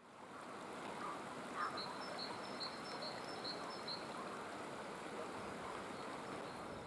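Faint outdoor ambience with a steady background hiss, over which a bird calls a run of about seven short, high, evenly spaced notes in the first few seconds.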